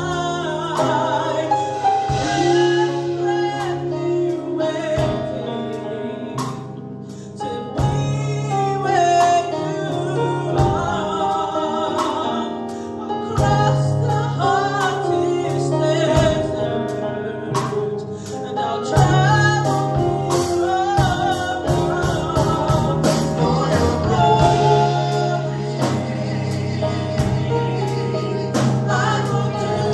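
A gospel praise band playing with singers: sustained bass notes and drum and cymbal hits under a sung melody, with male and female voices.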